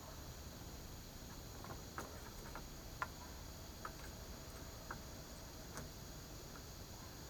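Scattered light metallic clicks and taps of hand tools working a nut onto a threaded axle, irregular and a second or so apart, the sharpest about three seconds in.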